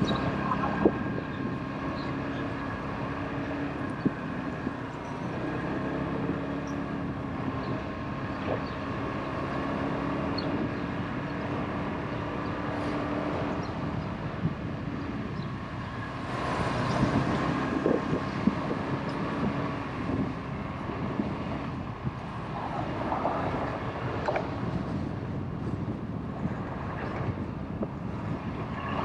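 Motorbike engine running steadily while riding along a road, with a louder stretch about two-thirds of the way through.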